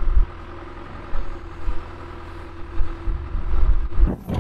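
An engine idling steadily, with uneven low thumps underneath. A sudden louder noise breaks in near the end.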